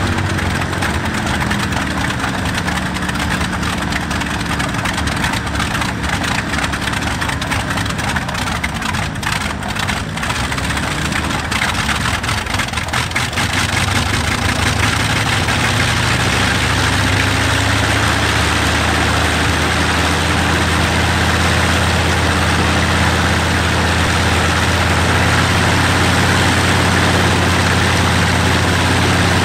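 Bristol Hercules radial and Rolls-Royce Merlin V-12 aero engines running on ground-run trailers with their propellers turning. The note wavers, dipping and rising about a third of the way in, then settles steadier and a little louder.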